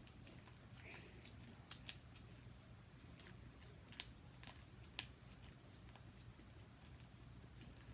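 Sticky homemade glue slime being stretched and kneaded by hand, giving faint wet clicks and pops, a few sharper ones about a second in, at four and at five seconds.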